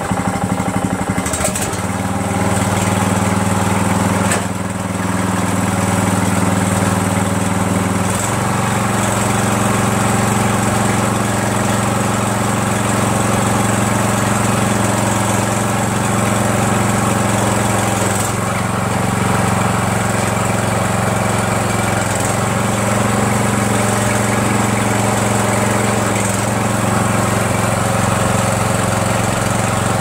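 Briggs & Stratton 17.5 HP engine of a Troy-Bilt (MTD) lawn tractor running steadily, with a few sharp clicks in the first five seconds. The engine note shifts slightly about eight seconds in, then holds steady.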